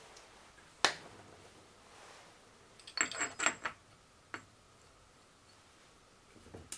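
Metal engine parts clinking while being fitted: a sharp click about a second in, then a quick cluster of ringing metallic clinks about three seconds in as a steel gear is slid onto its shaft in the open crankcase, and a single light tick shortly after.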